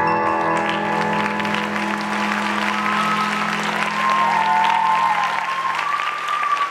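Audience applause rising from about a second in over the sustained closing chord of music, which fades away as the clapping takes over.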